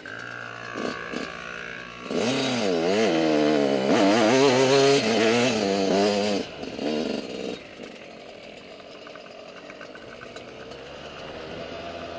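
Motocross bike engine heard from on board, revving hard with its pitch rising and falling quickly as the throttle is worked for about four seconds, then dropping to a quieter steady run.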